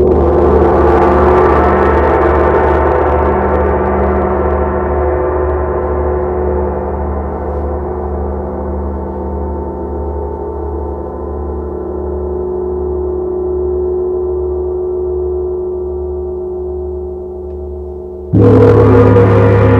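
Large hanging gongs struck with soft-headed mallets, two at once: a loud strike at the start, then a long ringing sustain of many layered tones with a slow low throb, slowly fading. Near the end a second pair of gongs, a Paiste gong and a smaller gong, is struck loudly together.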